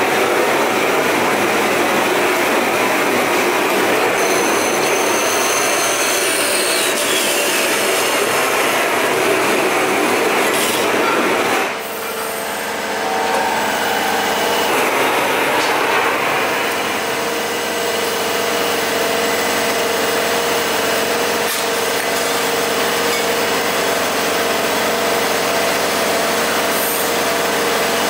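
Pegas metal-cutting bandsaw running, its blade cutting through a titanium exhaust tube at an angle for a pie-cut segment. The sound dips and changes character about twelve seconds in, then runs steadily again.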